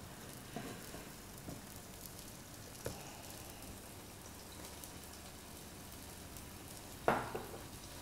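Sauce sizzling faintly in a frying pan, stirred with a wooden spoon that taps the pan a few times in the first three seconds. A louder knock or clatter comes near the end.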